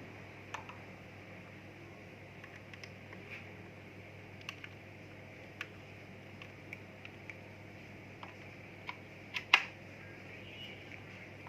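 Scattered light clicks and taps from handling a small travel steam iron, about a dozen spread out, the loudest a quick pair about nine and a half seconds in, over a steady low hum.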